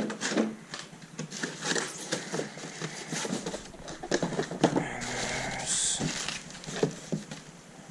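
Rummaging through a cardboard shipping box: packing material rustling and scraping, with irregular knocks and clatters as parts are picked up and set down.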